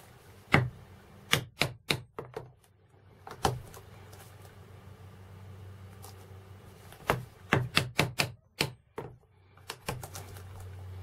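Poly-headed leather mallet striking a metal tool held upright on a leather collar strap. The sharp knocks come in clusters: one alone, a quick run of about five, a single knock, then a run of about six near the end, over a faint low hum.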